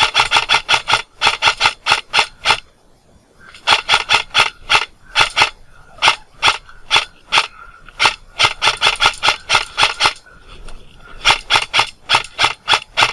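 M4-style airsoft rifle firing rapid shots, about five a second, in strings broken by short pauses about 3 seconds and 10 seconds in.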